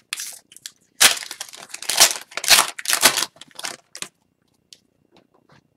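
Foil wrapper of an Upper Deck Series 2 hockey card pack being torn open and crinkled: a run of loud rustles for about four seconds, then only a few faint ticks.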